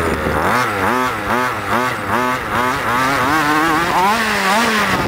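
HPI Baja large-scale RC buggy's two-stroke petrol engine, heard up close from the front shock tower, revving up and down about twice a second as the throttle is worked while it drives over dirt.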